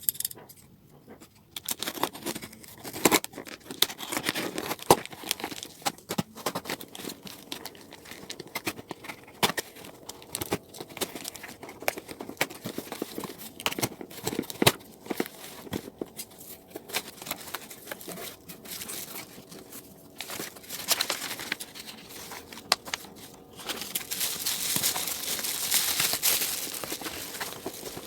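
Packaging being opened and handled by hand: plastic and paper crinkling and tearing, with many small clicks and knocks. There is a longer, louder stretch of tearing or rustling near the end.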